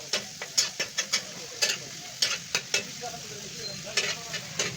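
Chicken pieces sizzling in hot ghee on a tawa while being stirred, with a spatula clattering and scraping against the griddle at irregular intervals.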